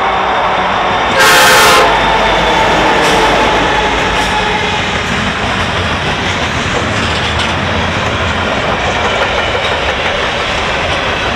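A long freight train rolling past, a steady rumble and clatter of freight car wheels on the rails. About a second in, one short, loud locomotive horn blast.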